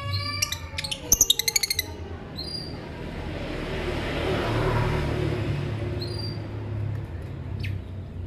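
Lovebird giving a quick run of about ten sharp chirps about a second in, followed by a few short high chirps over a rush of noise that swells and fades, like a car passing.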